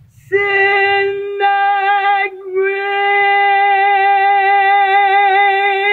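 A single voice holding one high sung note with a slight vibrato, starting just after the beginning. The note catches about a second and a half in and breaks off briefly a little later, then is held steadily.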